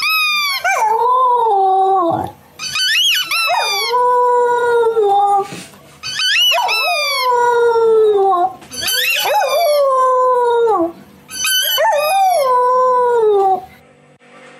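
A dog howling: five long howls in a row, each starting with a quick upward swoop and then sliding slowly down in pitch, with short breaks between them.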